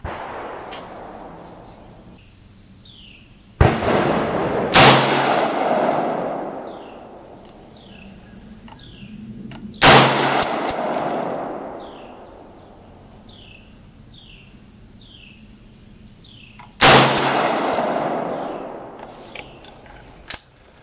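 AR-15 rifle firing .223 Remington 55-grain rounds: several single shots several seconds apart, the loudest about 5, 10 and 17 seconds in. Each sharp report is followed by a long echoing decay under the covered range's roof.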